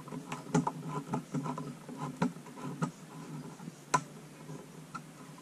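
Small case-fan screws being driven by hand with a screwdriver through a fan guard into a 120 mm case fan's frame: an irregular run of light clicks and taps, with one sharper click about four seconds in.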